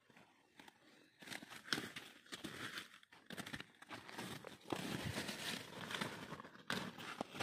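Hands scrabbling in dry garden soil among plants while picking up potatoes: irregular rustling and scraping that starts about a second in and grows louder near the middle.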